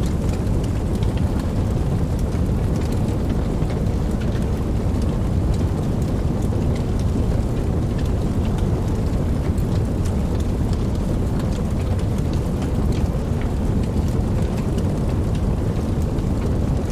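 Steady rain, with a deep, continuous low rumble of distant thunder underneath and scattered individual drops ticking.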